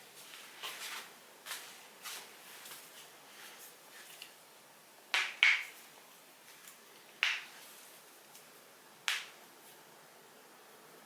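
A person's joints cracking: a few faint pops in the first few seconds, then louder sharp pops, two in quick succession about five seconds in, another around seven seconds, and a last one about nine seconds in.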